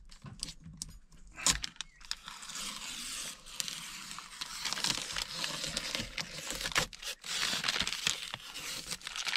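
Protective plastic film being peeled off a flat-screen TV, a continuous crackling and tearing with many small sharp crackles. Near the end the peeled film is crumpled in the hand.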